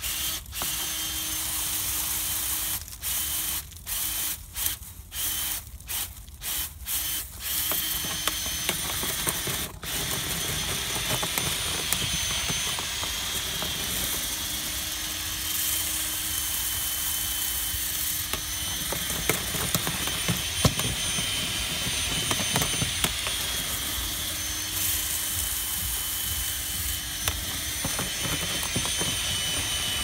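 Power drill spinning a dryer-vent cleaning brush on flexible extension rods inside the vent duct to clear out lint. It runs in short on-off pulses for about the first eight seconds, then runs steadily with a high whine and scattered knocks.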